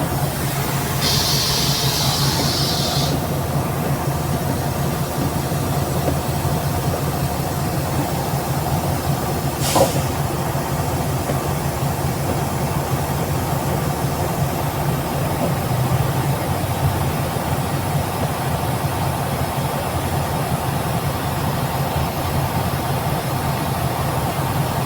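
Mercedes-Benz OF 1721 BlueTec 5 bus running, a steady engine and drivetrain hum with the differential growling. A hiss lasts about two seconds starting about a second in, and a single sharp knock comes near ten seconds.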